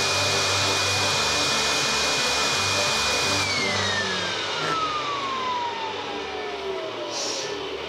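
Blower running with a steady rush of air and a high motor whine, then switched off about three and a half seconds in: the whine falls steadily in pitch as the motor spins down.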